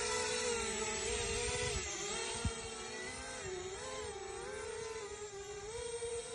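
Brushless motors and propellers of a 4-inch FPV quadcopter whining in flight, the pitch wavering up and down as the throttle changes. A brief low thump about two and a half seconds in.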